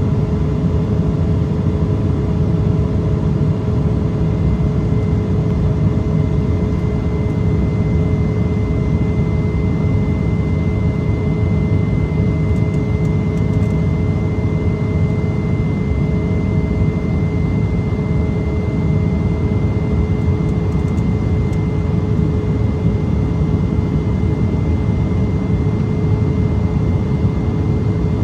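Steady cabin noise of an Embraer ERJ-170 in its climb: a loud, even roar of air and its twin GE CF34-8E turbofan engines, with several steady engine tones running above it.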